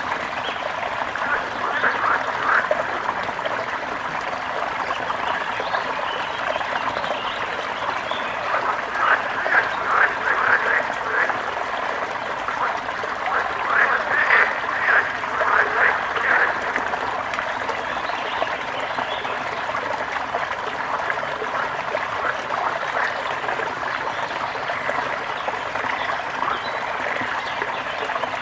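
A brook running steadily, with frogs croaking in rapid bursts of calls, about a second in, around the middle, and again near the end.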